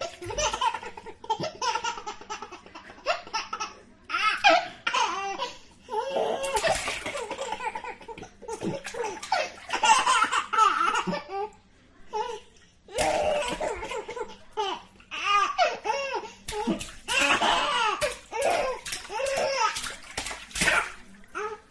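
A baby laughing and squealing in repeated short bursts, with water splashing as it plays in the bath.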